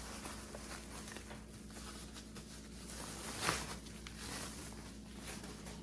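Faint handling noise as a boxed speaker and its packaging are moved about, with one brief rustle about three and a half seconds in.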